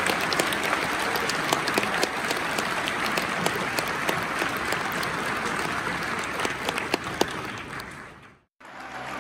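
Large crowd applauding in a school gymnasium after a speech, fading out about eight seconds in; music starts up right at the end.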